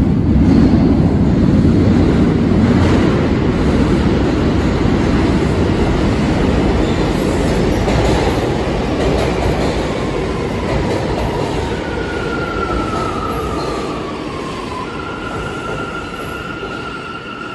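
New York City Subway train pulling into an underground station: a loud rumble of wheels on rail that slowly fades, then a whine that falls in pitch as the train slows, settling into a steady high tone near the end as it comes to a stop.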